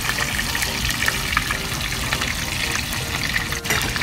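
Pompano steaks shallow-frying in hot oil in a pan: a steady sizzle with small crackling pops.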